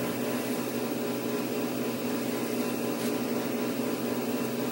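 Steady hum and hiss of room background noise, even throughout with no distinct events.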